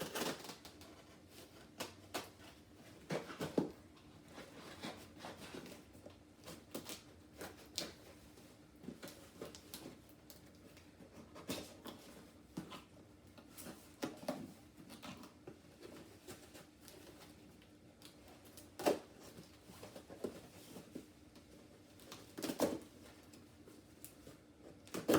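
Cardboard box and its packaging being opened and handled by hand: irregular taps, clicks, scrapes and short rustles, a few sharper knocks standing out.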